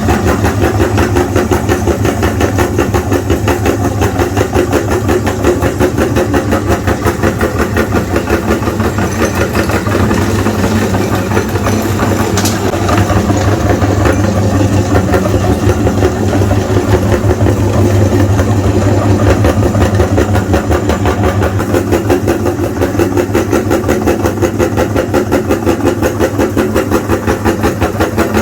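Electric meat grinder motor starting abruptly and running steadily as it grinds sticks of coloured chalk, with a strong low hum and a fast, even pulsing.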